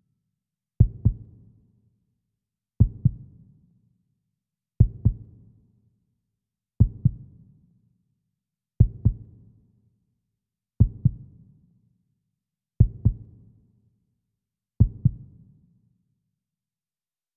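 Heartbeat sound in a music score: slow double thumps, lub-dub, one pair every two seconds, eight pairs in all. Each thump trails off in a short fading echo, and the beats stop a couple of seconds before the end.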